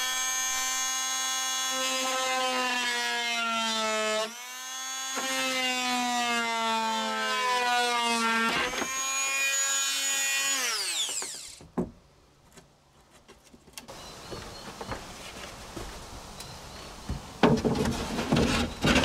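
Oscillating multi-tool cutting a notch into a half-inch plywood shelf: a loud, steady buzz whose pitch sags and recovers as the blade bites, with a brief dip about four seconds in, then winding down about eleven seconds in. Near the end, the plywood shelf knocks and rubs against the wooden cabinet as it is handled.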